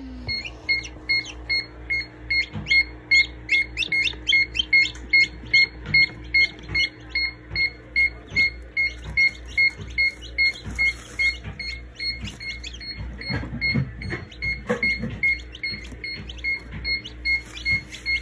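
Newly hatched chicks peeping in quick, irregular falling chirps, over a steady high beep repeating about three times a second.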